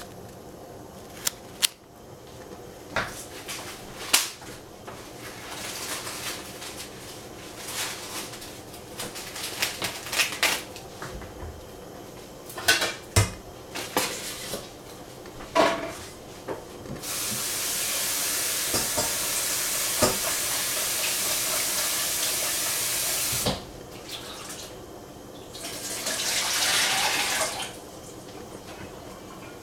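Kitchen handling sounds: scattered clinks and knocks of dishes and utensils. A water tap runs steadily for about six seconds past the middle, and again briefly a few seconds later.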